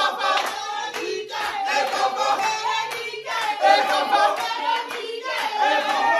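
A group of people singing and shouting together, with hand clapping.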